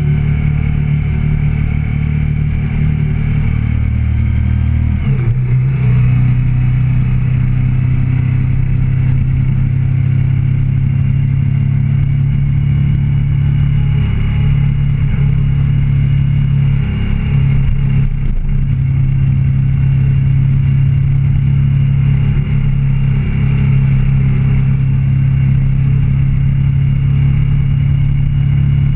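Motorcycle engine running steadily under way, picked up by a camera mounted on the bike. The engine note shifts about five seconds in.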